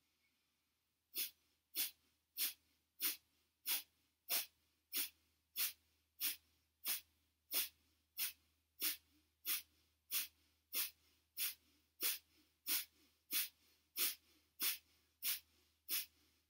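Kapalabhati yoga breathing: a long run of short, forceful exhalations through the nose, evenly paced at about three every two seconds, starting about a second in.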